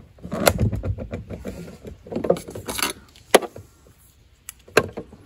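Rattling and clinking as a trolling motor's coiled power cable and its alligator battery clips are unwound and handled, with several sharp clicks, the loudest a little past three seconds in.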